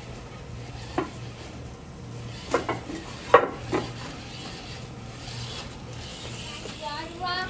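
Traxxas TRX-4 Sport RC rock crawler climbing over curved roof tiles: a steady low electric-motor drone under a few sharp knocks and clatters as the tyres and chassis hit the tiles, the loudest about three seconds in. A short pitched whine comes near the end.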